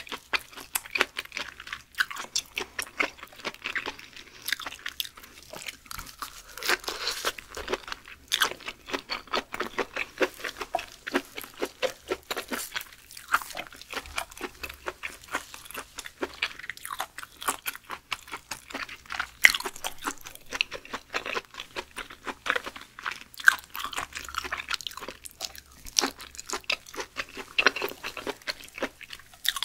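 Close-miked chewing and biting of raw beef skirt meat: a steady stream of quick, wet mouth clicks and crunches.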